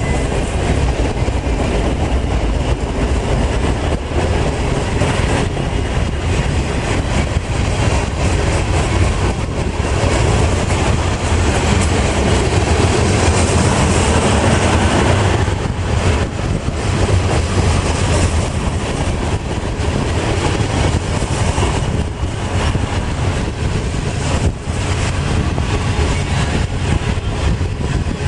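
Freight cars rolling past close by: a steady, loud rumble and rattle of steel wheels on the rails.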